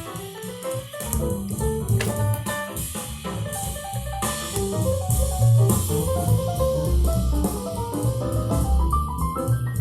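Instrumental jazz-style music with drum kit, bass and melodic instruments, played through a TDA7498 class-D stereo amplifier and its loudspeakers as a sound check; a rising run of notes comes near the end.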